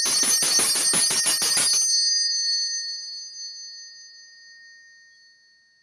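A handbell tuned to about A sharp 6, shaken so its clapper strikes about six times a second. The ringing stops about two seconds in, and the bell rings on and slowly dies away.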